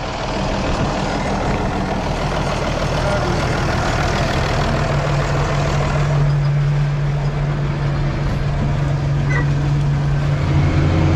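Farm tractor's diesel engine idling steadily. For the first six seconds a rushing noise lies over its hum. After that the engine's low drone stands out alone, as if heard from the cab, and it grows louder near the end.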